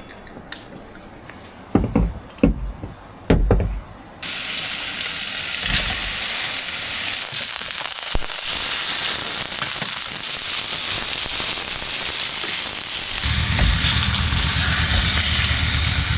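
A few low knocks, then about four seconds in burgers start sizzling loudly on a hot cooking surface, a steady frying sizzle. A low rumble joins near the end.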